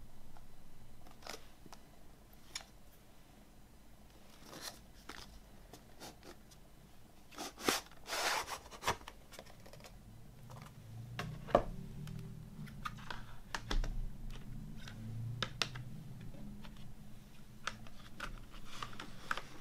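Plastic CD jewel cases handled in a cardboard slipcase, with light clicks and scrapes. A longer rustling scrape about eight seconds in as the cases slide out of the slipcase, then soft knocks and thuds as the cases are set down on a wooden tabletop.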